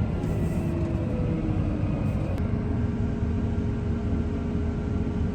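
Tractor engine running steadily under a continuous low rumble, with a faint whine that falls in pitch over the first couple of seconds and then holds steady.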